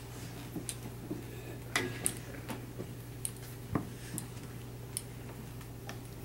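Scattered light clicks and taps from markers and dry-erase boards being handled at classroom desks and an easel whiteboard, irregular and a few per second at most, over a steady low hum.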